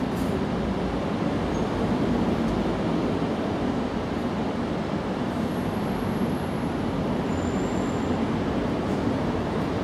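Steady low background noise, even throughout, with faint high thin whistles in the middle.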